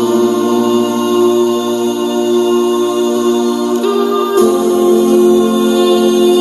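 Background music: wordless a cappella vocal harmonies held as long chords, moving to a new chord about four seconds in.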